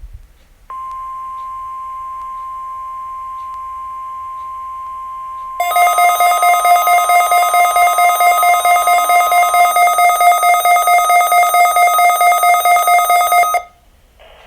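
NOAA Weather Radio 1050 Hz warning alarm tone: one steady pure tone that begins about a second in, tests the alert that switches weather radio receivers on. About five seconds in, a much louder, rapidly pulsing electronic alarm joins it. The pulsing alarm runs on after the tone stops and cuts off suddenly near the end.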